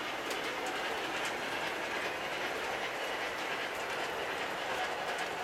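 Lionel O-gauge model freight cars rolling along the track: a steady rolling rumble of metal wheels on rail with a few faint clicks.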